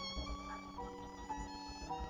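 Background music: a slow melody of long held notes that change pitch every half second or so.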